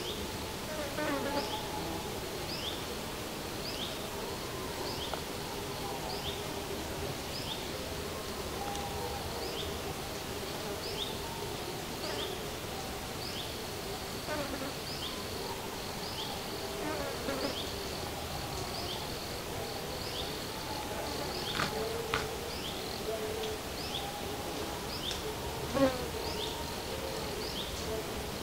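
A flying insect buzzing around the microphone, its wing hum wavering in pitch as it moves. Behind it, a short high chirp repeats steadily a little more than once a second, with a couple of sharp clicks near the end.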